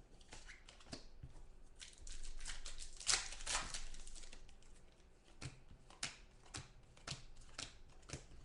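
Football trading card pack being opened and its cards handled: a rustling, tearing stretch, then a run of light clicks about two a second as the cards are flipped through.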